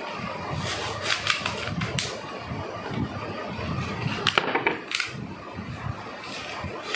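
Hands handling thin disposable plastic cups and tufts of dry jute fibre: rustling, with a few sharp plastic clicks and crinkles as cups are picked up and set down.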